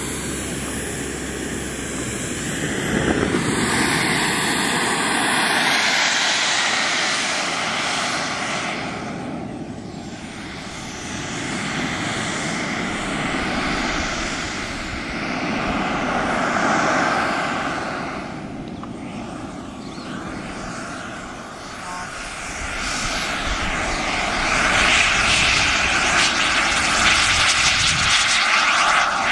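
RC model jet's turbine engine running with a steady rush and faint whine that swells and fades several times, then grows louder and stays loud for the last few seconds as the jet makes its takeoff roll at power.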